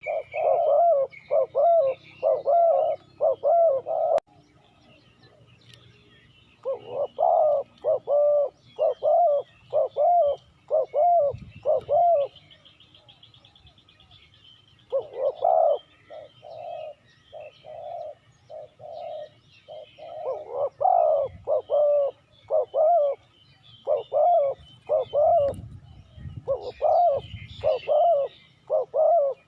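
Spotted doves cooing: runs of low, rounded coo notes, about two a second, with short pauses between the runs. Faint high chirps of small birds sit behind the coos.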